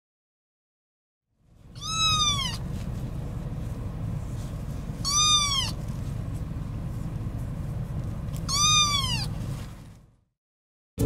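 Gray tabby kitten meowing three times from inside a mesh pet carrier, each meow high and falling in pitch, over the steady low rumble of a car cabin on the move.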